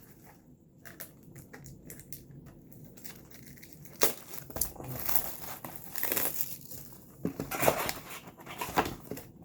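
Card-pack packaging crinkling and being handled. Faint rustles and clicks for about four seconds, then louder, irregular crinkling and crackling.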